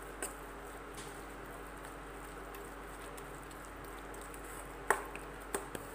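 Spatula stirring thick onion-garlic masala paste in a kadhai: a low steady background with a few sharp knocks of the spatula against the pan, the loudest about five seconds in.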